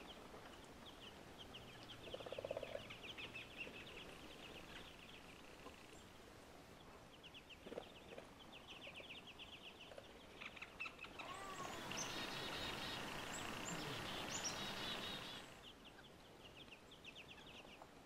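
Small songbirds calling faintly, with repeated short runs of rapid harsh notes. From about eleven seconds in, a louder rushing hiss with higher chirps over it lasts about four seconds.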